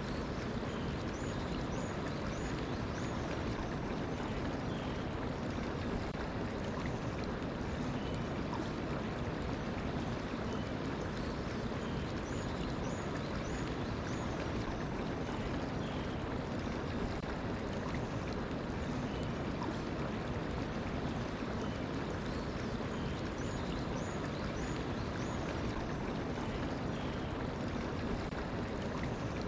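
Mountain stream flowing steadily over rocks, with a bird calling over it in short runs of four or five high chirps several times.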